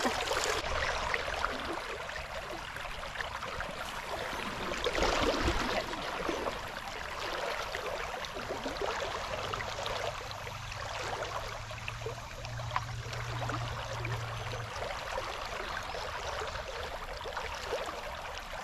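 Shallow river current rippling and babbling steadily around the legs of someone wading, briefly louder about five seconds in. A faint low hum sits under it for a few seconds in the middle.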